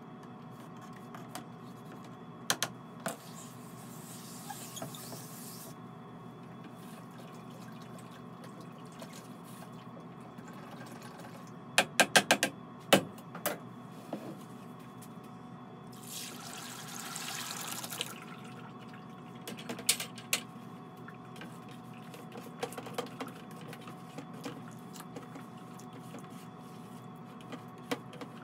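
Studio work noise over a steady background hum: a quick run of sharp knocks about twelve seconds in, and a rush of pouring or running liquid lasting about two seconds around sixteen seconds in, with a few scattered clicks and knocks.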